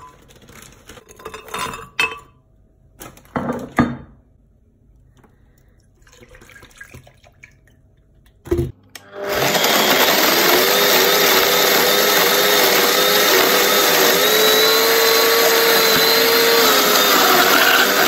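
A few knocks in the first seconds. Then, about nine seconds in, a Kenwood glass-jug blender switches on and runs steadily, blending frozen mango and passion fruit pieces in mango juice into a smoothie. Its hum wavers and shifts in pitch near the end.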